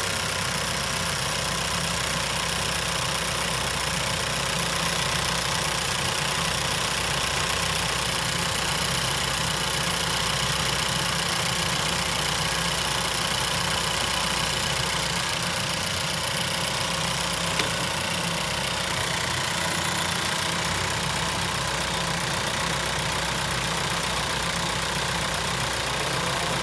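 2016 Chevy Cruze's turbocharged 1.4-litre four-cylinder engine idling steadily. It has a freshly replaced turbocharger, and the metal-rubbing noise the old turbo made is gone.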